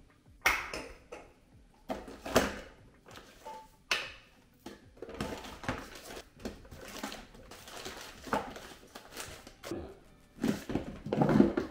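Bottles and containers being put away on shelves: a string of light knocks and clatters, with rustling and shuffling between them.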